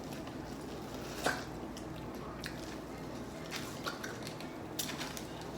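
Eating sounds while working through a seafood boil: light clicks and taps of shells and utensils, with soft wet handling noises, the sharpest click about a second in.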